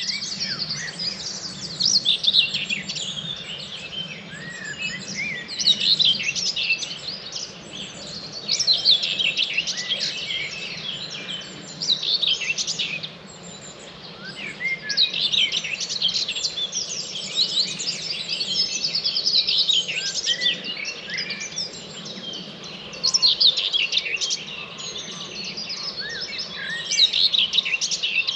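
Dawn chorus: many songbirds singing at once, their chirps, trills and whistles overlapping without a break, swelling and easing every few seconds. A steady low hum lies underneath.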